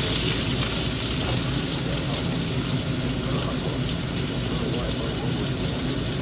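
Steady rushing noise of a street-food wok stove, with faint voices behind it.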